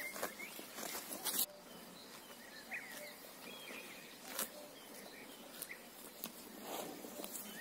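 Cow cropping grass close up: a run of crisp ripping and crunching strokes that stops abruptly about a second and a half in. After that comes a quieter outdoor background with faint bird chirps and an occasional single crunch.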